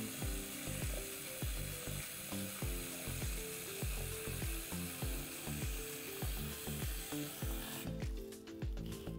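Background music with a steady beat over water running from a kitchen tap as hands are rinsed. The water stops about eight seconds in, and a few splashes and clicks follow.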